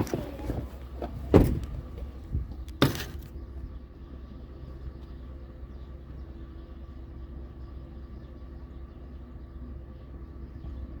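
Two heavy thumps, like car doors shutting, about a second and a half and three seconds in, followed by a vehicle's engine running with a steady low rumble.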